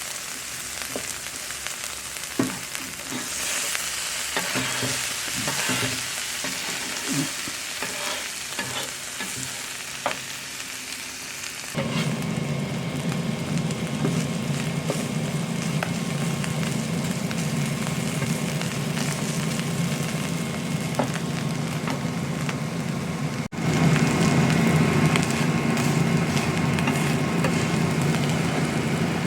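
Food sizzling and frying in a hot pan, with scattered clicks and scrapes of a utensil stirring. About twelve seconds in it turns louder, with a steady low hum under the sizzle, and just past the middle it cuts abruptly to a still louder stretch of frying.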